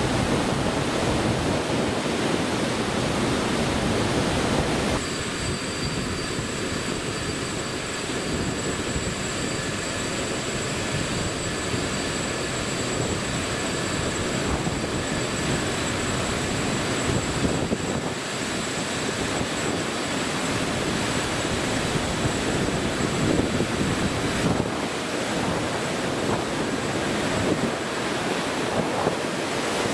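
Steady rushing background noise. About five seconds in its character shifts and faint, steady high-pitched whines join it.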